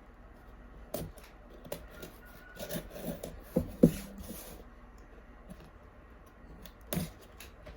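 Cardboard shipping box being opened by hand: scattered scrapes, rustles and sharp clicks of tape and cardboard, the sharpest about four seconds in and another near the end.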